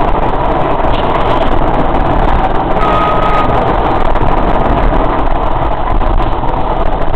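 Tyne and Wear Metro train running along the track, a loud steady rumble of wheels on rails heard from inside the car, with a brief high tone about three seconds in.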